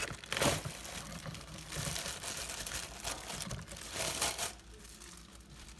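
Packaging being handled while a spice grinder's parts are unpacked: irregular crinkling and rustling that dies down near the end.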